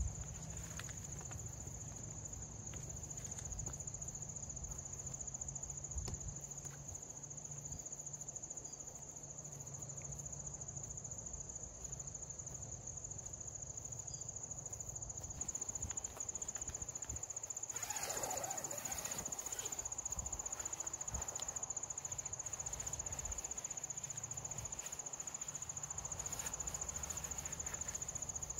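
Insects trilling steadily in one continuous high-pitched note, with a brief rustle about two-thirds of the way through.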